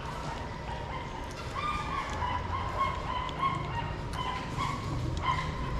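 Shih Tzu puppies whining and yipping: a string of short, high, thin cries that come more often from about a second and a half in.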